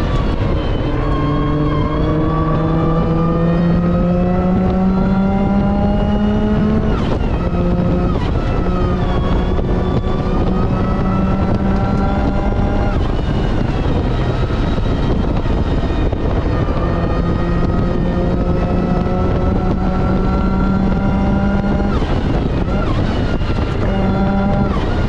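Supercharged Mazda MX-5 NB's four-cylinder engine accelerating hard, its revs climbing in long pulls and dropping sharply at gear changes and lifts, about seven seconds in, around halfway and again near the end, over steady road and wind noise.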